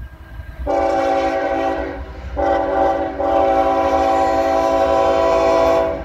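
CSX freight locomotive's multi-chime air horn sounding for the grade crossing: a blast of about a second and a half, then after a short break a long blast of about three and a half seconds, over the low rumble of the approaching train.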